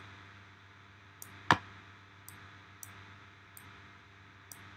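Computer mouse clicking: about six short single clicks, a half second to a second apart, with one much louder click about a second and a half in, over a faint steady low hum.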